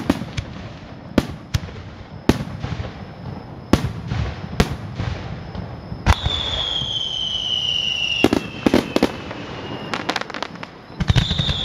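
Aerial fireworks shells bursting overhead: sharp bangs at irregular intervals, with quick clusters of bangs in the second half. From about halfway a long whistle slowly falls in pitch, and a second one starts near the end.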